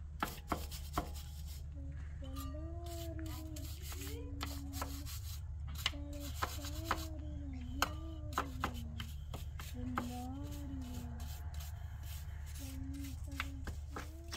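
A wire brush scraping a metal window frame in short, irregular strokes, while a person hums a wandering tune over it. A steady low hum runs underneath.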